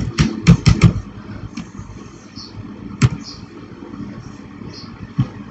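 Computer keyboard keys being struck: a quick run of about five keystrokes, then single taps about three seconds in and near the end, over steady background noise.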